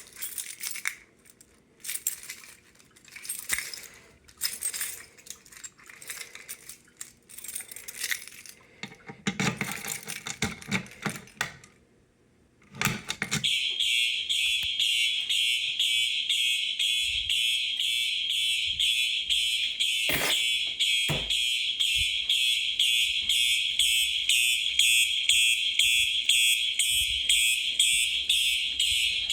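Clicks and rattles of a Simplex 2099 pull station being handled and pulled. About halfway through, Simplex electronic fire alarm horns start sounding in march-time coding: a loud, high, pulsing horn tone.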